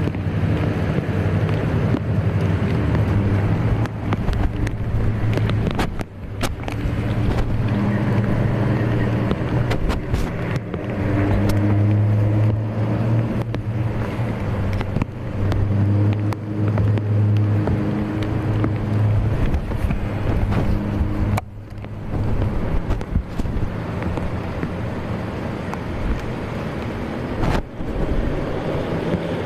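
Engine running steadily with a low, droning hum, under a constant outdoor noise, with a few abrupt changes where the footage cuts between shots.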